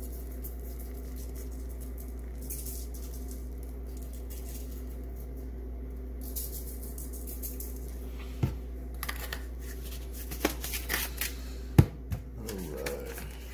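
Granulated garlic shaken from a spice shaker onto raw chicken thighs in a foil-lined pan: soft hissing sprinkles over a steady low hum, then a few sharp clicks and knocks of handling in the last five seconds, the loudest about two seconds before the end.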